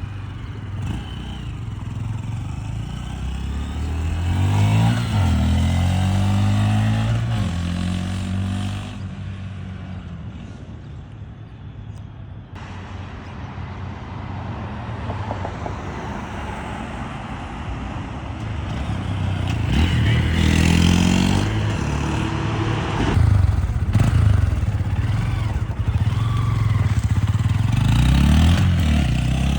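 2025 Honda Grom's 125 cc single-cylinder engine running through a Vance & Hines upsweep slip-on exhaust, revving up and dropping back several times with a steadier, quieter stretch in between. The aftermarket exhaust is pretty loud.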